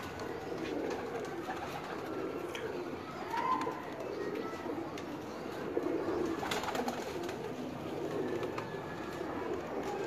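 Domestic pigeons cooing steadily in a loft, several birds overlapping, with a few faint clicks about two-thirds of the way through.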